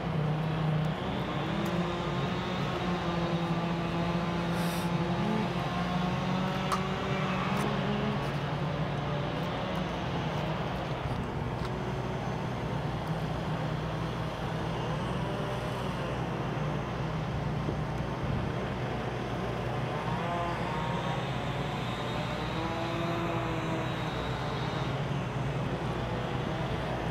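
Steady motor hum of a camera drone in flight, its pitch stepping up and down as it manoeuvres, over faint distant voices.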